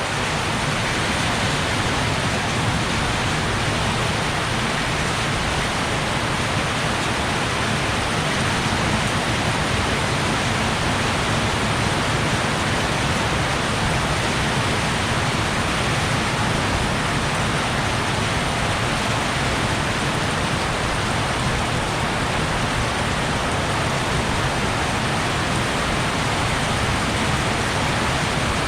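Heavy rain falling in a steady downpour, an even rushing hiss with no thunderclaps.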